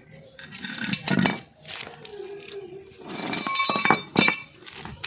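Metal tyre-changing tools from a car's tool kit clinking and clanking as they are handled and set down. There are several sharp, ringing metallic clinks, the loudest a little after four seconds in.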